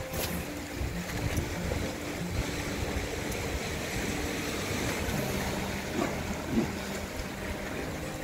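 Sea waves washing against shoreline rocks, with wind on the microphone and a faint steady low hum underneath. A brief sharp sound comes right at the start.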